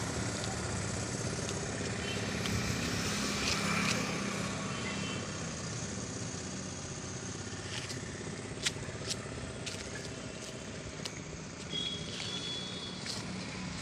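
Steady outdoor background noise with distant road traffic, and a couple of faint clicks about nine seconds in.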